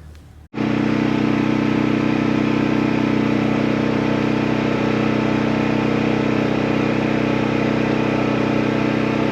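Portable generator engine running at a steady speed, starting suddenly about half a second in.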